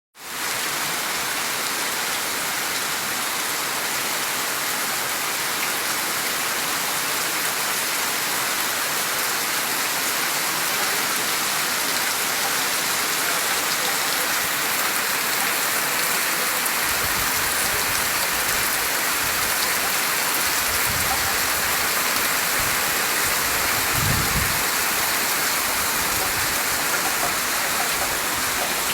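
Heavy rain falling steadily, a dense even hiss of drops. Low rumbling joins about halfway through and swells briefly near the end.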